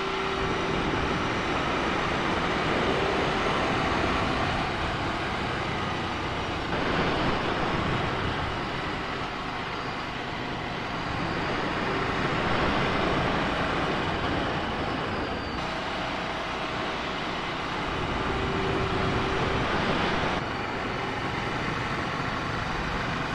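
Ducati Scrambler Sixty2's air-cooled L-twin running under way, mixed with steady wind rush on the microphone. The sound changes character abruptly about 7, 15 and 20 seconds in.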